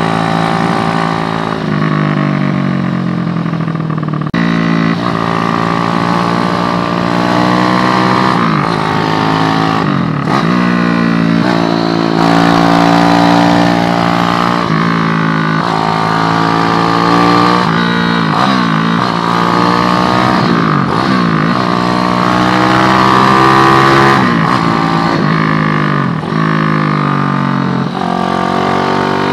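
Motorcycle with an SND ZS190 190 cc single-cylinder engine being ridden hard. Its pitch climbs under acceleration and drops sharply at each gear change, over and over, about a dozen times.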